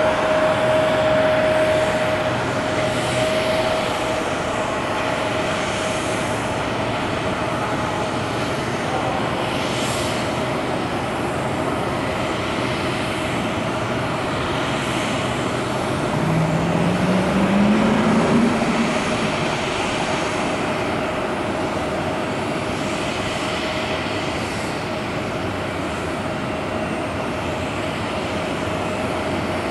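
Jet aircraft engines running at an airport: a continuous roar with a steady high whine. About sixteen seconds in, a low tone rises for a couple of seconds and the level swells briefly.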